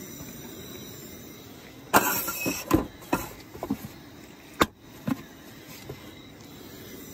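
Several sharp knocks and clatters as a large plastic water jug and a metal cooking pot are handled on a steel camp-kitchen counter, the loudest about two seconds in and another just past the middle.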